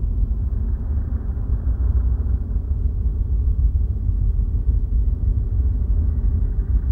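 Steady low rumble of strong tornado wind, a continuous deep roar with no distinct knocks or tones.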